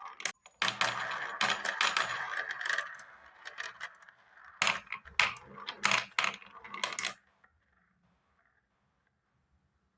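Marbles clattering and rolling down a marble run: a dense rolling rattle with many clicks, then a few sharp separate clacks, and the sound stops about seven seconds in.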